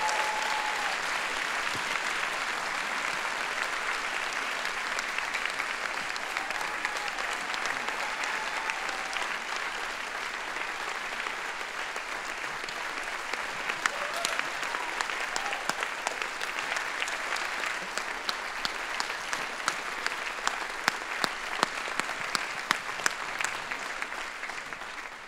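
Large audience applauding steadily. Over the last few seconds the applause thins into separate claps and dies away.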